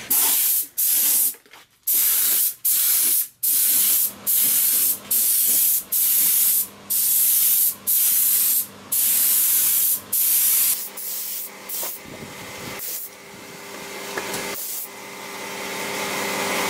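Air-fed paint spray gun hissing in about a dozen short passes of half a second to a second, its trigger pulled and released, while laying a light first coat of acrylic paint. For the last few seconds a softer hiss over a steady hum grows louder.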